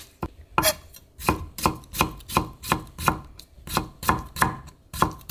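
Knife slicing pickled cucumber (oiji) thinly on a cutting board: quick, even cuts about three a second, with a short pause near the start.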